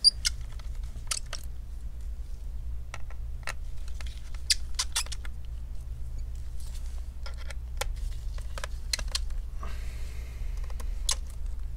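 Scattered small clicks and light taps of a T5 Torx screwdriver working the bottom-cover screws out of a laptop, with brief squeaks from the screwdriver, whose head is poorly lubricated or worn. A steady low hum lies underneath.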